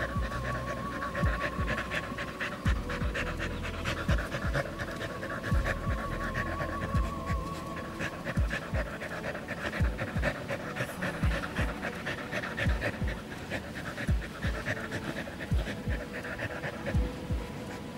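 Samoyed dog panting steadily, with irregular dull low thumps throughout.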